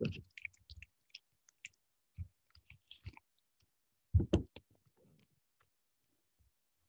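Scattered light clicks and taps, with a brief louder sound about four seconds in, then quiet.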